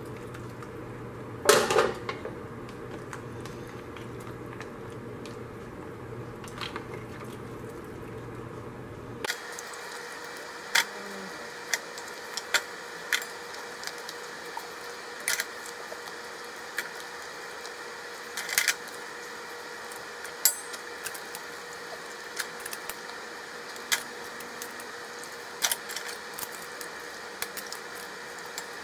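Metal ladle, tongs and a wooden spoon clinking and knocking against a stainless steel stockpot and lid as seafood is lifted out of the broth. The sharp taps come irregularly every second or so, over a steady hiss.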